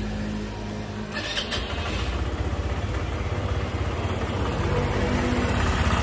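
PGO Jbubu scooter's single-cylinder four-stroke engine started about a second in, then idling with a steady, even pulse. It idles without the abnormal noise that the failed internal cam chain tensioner had caused, now that the tensioner has been replaced.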